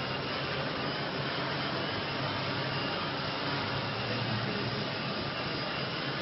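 HeliMAX Form500 quadcopter's electric motors and propellers whirring steadily as it hovers, with a low hum that swells slightly about four seconds in.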